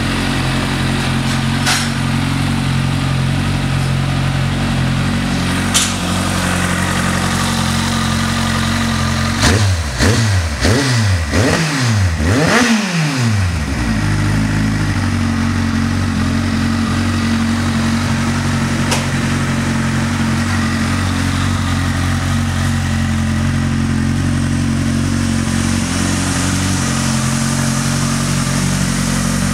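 Kawasaki ZZR1400's inline-four engine idling steadily through an aftermarket end can. About ten seconds in, the throttle is blipped about five times in quick succession, each rev rising and dropping back, before the engine settles to idle again.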